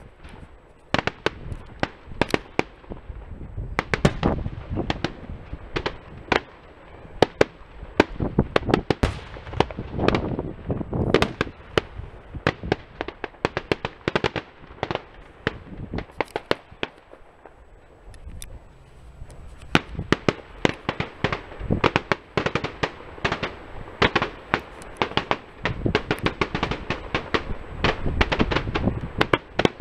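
Aerial fireworks display: many sharp bangs and cracks of bursting shells in quick succession, in dense runs with a short lull a little past halfway.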